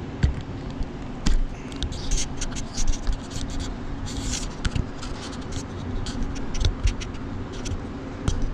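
Close handling noise from a hand gripping and adjusting the camera: quick clicks, knocks and scraping rustles. Underneath it, the steady warm idle of a 1973.5 Porsche 911T's air-cooled flat-six.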